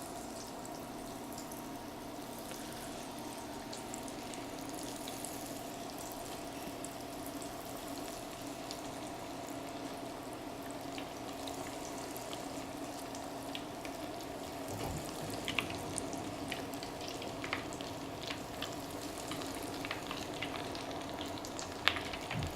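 Breaded crab cake balls deep-frying in hot oil: a steady sizzle over a low steady hum, with scattered sharp pops and clicks in the last third.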